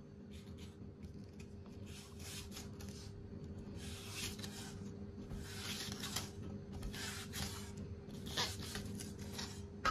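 Cleaver slicing crisp Napa cabbage stalks on the bias against a wooden chopping block: faint, crisp slicing strokes about a second apart, with one sharper tick near the end, over a steady low hum.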